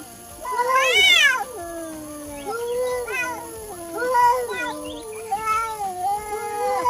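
A cat meowing over and over in long, drawn-out calls that rise and fall in pitch, the loudest and highest about a second in.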